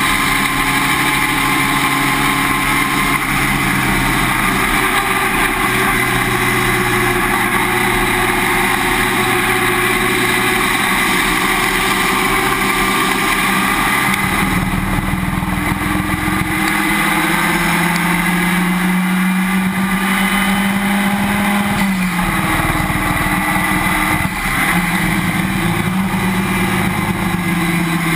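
Race car at speed, heard from a camera mounted at the rear suspension: steady engine, tyre and wind noise. The engine note changes about halfway through, climbs slowly, drops sharply about three quarters of the way through, then climbs again.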